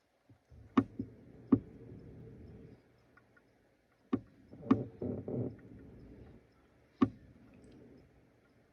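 A person burping three times, low and rough, each burp starting with a sharp click. The burps come from gas out of carbonated soda.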